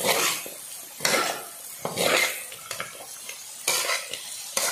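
Spatula scraping and tossing frog pieces around a steel wok while they fry, in strokes roughly once a second over a steady sizzle.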